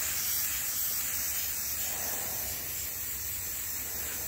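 Aerosol spray-paint can spraying in one long, unbroken hiss, its nozzle held fully down.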